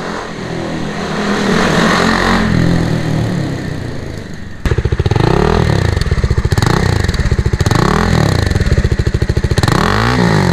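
Bajaj Dominar 400 single-cylinder engine running through an aftermarket slip-on exhaust. First its note rises and falls smoothly. Then it idles with strong, evenly spaced pulses and is revved in four short throttle blips, each climbing and dropping back.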